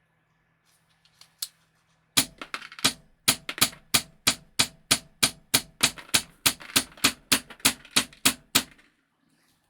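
Wolverine MTW-9 HPA airsoft rifle firing single shots in semi-auto, about twenty sharp cracks at roughly three a second, with 0.28 g BBs during a consistency test.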